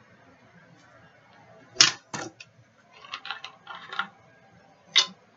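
A handful of sharp clicks and taps from small hard objects being handled close to the microphone. Two come about two seconds in, a quick run of them follows between three and four seconds, and one more falls near the end.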